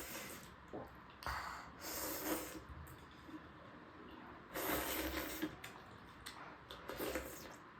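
Close-miked eating sounds: a person chewing chicken momo with chilli pickle, with noisy breaths through the nose, in several short irregular bursts.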